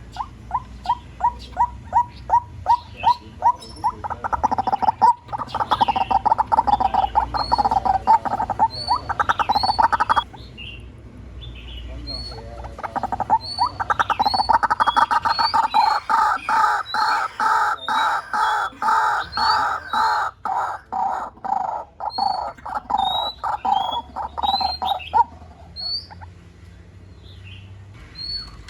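White-breasted waterhen calling: a long series of repeated notes that begin separately, quicken into a dense run, break off about ten seconds in and start again a few seconds later, stopping near the end. Short, higher chirps sound over the series.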